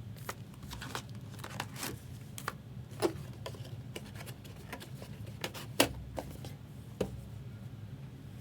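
Trading card boxes and foil pack wrappers being handled and opened by hand: scattered clicks and light rustles, three sharper snaps about 3, 6 and 7 seconds in, over a steady low hum.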